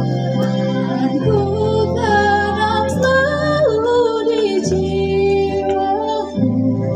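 A girl singing a melody into a handheld microphone over instrumental accompaniment, with the bass chords changing every couple of seconds.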